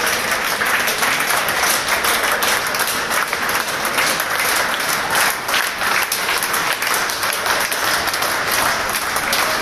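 Many people clapping together in steady, sustained applause, a dense patter of overlapping hand claps.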